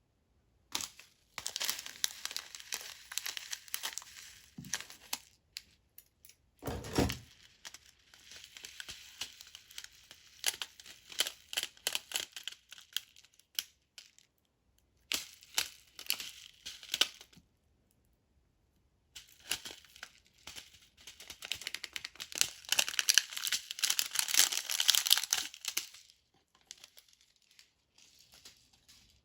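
Crinkling and rustling in three long bouts, like packaging or paper being handled. There is a single dull thump about seven seconds in.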